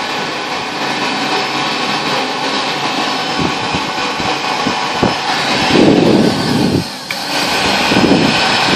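Automatic stainless-steel hand dryer blowing a loud, steady rush of air, the sound swelling and changing as hands move in the airstream. It dips briefly about seven seconds in, then picks up again.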